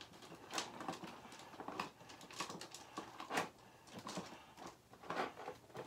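Makeup containers being handled and sorted through: a scatter of light clicks and knocks with soft rustling between them.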